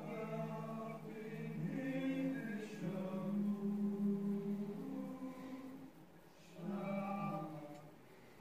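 A group of men singing a slow Christmas carol a cappella, in long held notes; the singing pauses briefly about six seconds in, then resumes. It comes from the episode's soundtrack, picked up in the room.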